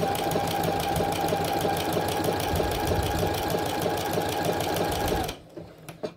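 Domestic electric sewing machine with a walking foot stitching a stretch (lightning bolt) stitch: a steady motor whine under an even, rapid clatter of needle strokes, which stops about five seconds in, followed by a few faint clicks.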